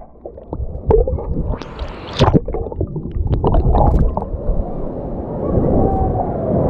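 Wave-pool water heard underwater: a muffled, churning rumble with bubbles crackling and popping, the clearest pops about two seconds in. The full, open sound of the pool returns suddenly at the very end as the microphone comes back above the surface.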